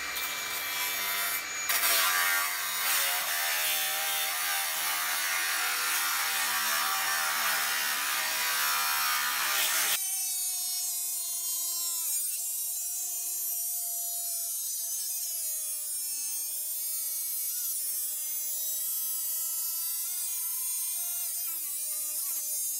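Milwaukee Fuel cordless angle grinder with a cutting disc slicing through a water heater's steel shell: a harsh grinding noise, which about ten seconds in changes abruptly to a whining motor tone that dips in pitch several times as the disc bogs under load.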